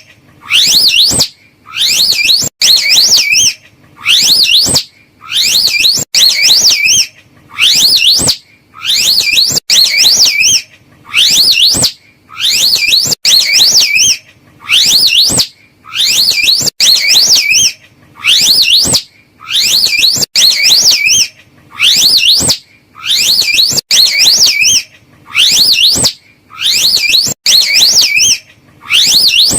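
Slow loris calling: short, shrill, wavering whistled calls repeated over and over at a steady pace, about one a second.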